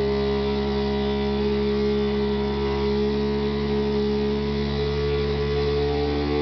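Toilet fill valve vibrating as the tank refills, a loud steady drone of several held tones, some shifting slightly in pitch near the end. The noise comes from a broken plastic valve in the toilet.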